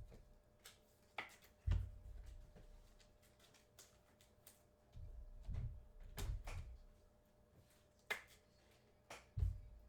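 Trading cards and plastic card holders being handled on a table: scattered light clicks and taps with a few low thumps, about a dozen in all.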